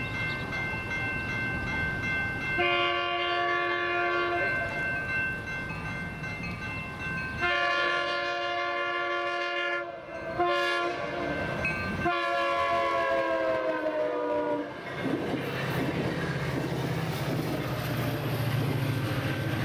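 Passenger train locomotive sounding its horn for a grade crossing in the long, long, short, long pattern, the last blast sliding down in pitch as the locomotive passes, over the steady ringing of the crossing bells. After the horn, the train rumbles past.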